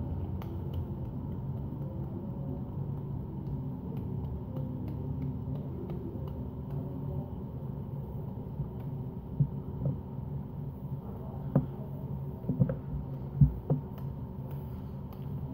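Light, repeated slaps of a hand against a cheek, heard as faint short clicks over a steady low room hum, with a few louder thumps in the second half.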